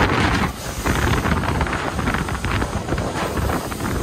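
Wind buffeting the microphone on a boat running at speed, with the rush and splash of water off the hull and wake. The noise is loud and gusting, with no clear engine note standing out.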